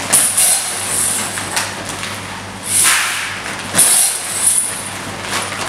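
A large plastic bag of dried chickpeas crinkling and rustling in several short bursts, about four, as it is handled and scooped from with a steel bowl, over a steady low hum.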